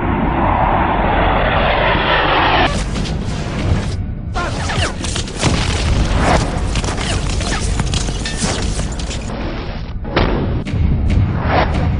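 Dramatic soundtrack mix: an aircraft roar that falls in pitch, then a long run of booms and sharp impacts like bombs and gunfire, over brooding music.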